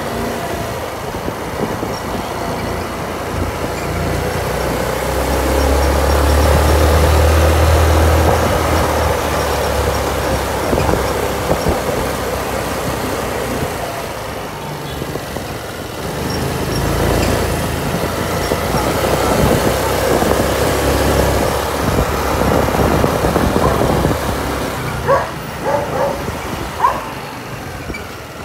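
Kymco Super 8 motor scooter riding along the road: steady engine and road noise, with wind buffeting the microphone as a low rumble that is strongest several seconds in. A few short sharp sounds come near the end.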